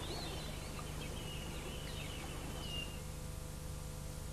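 Faint background ambience: a few thin, high bird-like whistles over a low steady hum.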